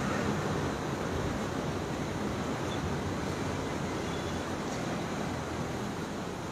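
Steady, even hiss of background noise with no distinct events, slowly fading a little toward the end.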